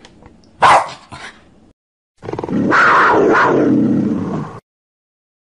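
A dog barks sharply about a second in, with a fainter bark just after. After a short pause comes a single long, rough big-cat roar lasting about two and a half seconds.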